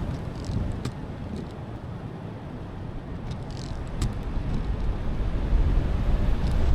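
Car driving on a rain-wet road: a steady low rumble of tyre and road noise with a few faint taps. It eases about a second in and builds back up toward the end.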